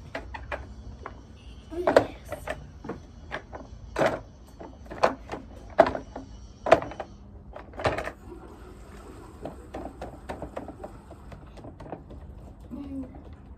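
Irregular knocks and clatters of vacuum cleaner parts being handled, loudest about two, four, six and eight seconds in, with lighter taps between.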